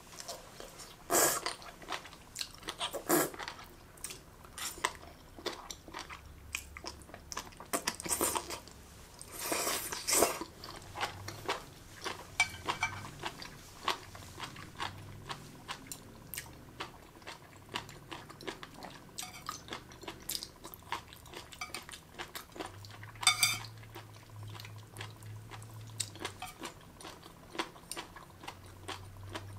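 Close-miked chewing of crunchy, gelatinous jellyfish strips: many small wet crunches and mouth clicks, with a few louder slurps as strands are drawn in, and occasional chopstick taps on the plate.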